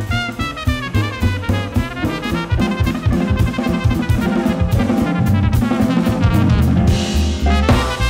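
Jazz quartet playing: a trumpet leads over piano, double bass and drum kit, with a cymbal crash near the end.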